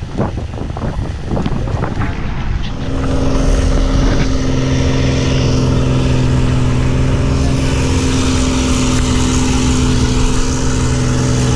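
A few irregular knocks and clatter, then from about three seconds in a Thai longtail boat's engine running loud and steady at a constant speed, heard from on board.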